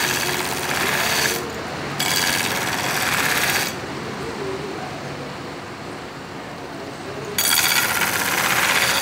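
Belt grinder running while a steel knife blade is pressed against the abrasive belt in passes to grind a distal taper, giving a harsh grinding hiss. The blade is on the belt for about the first second and a half and again briefly, then lifted off for a few seconds with only the machine running, and pressed on again near the end.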